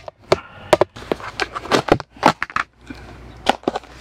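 Irregular sharp clicks and knocks of cooking gear being handled: a plastic food container tapped over a pot and tongs clacking against a plastic tub.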